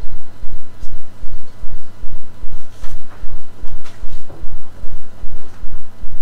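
A loud, steady low hum with a rhythmic low throbbing pulsing several times a second, and a few faint clicks.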